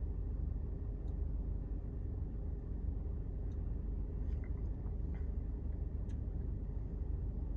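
Steady low hum inside a 2019 Mercedes-Benz E-Class cabin, with a few faint ticks scattered through.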